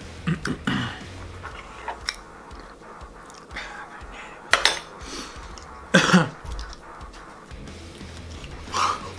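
A man coughing and clearing his throat in short bursts, several times, the loudest about six seconds in, over quiet background music.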